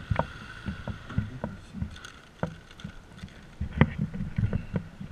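Handling noise as a rider shifts about on a stopped scooter to stow a paper takeout bag: a string of irregular knocks, clicks and low thumps, over a faint steady high whine.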